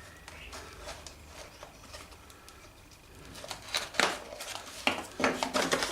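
Small hardware and its packaging being handled: a run of light clicks and rustles that turns busier about halfway, with several sharp clicks near the end.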